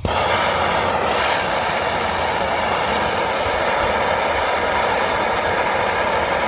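MAP-Pro gas hand torch burning with a loud, steady hiss as it heats aluminum to flow a brazing rod into a screw hole.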